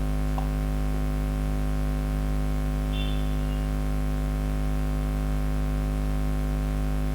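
Steady electrical mains hum at about 50 Hz with its overtones, over a faint hiss.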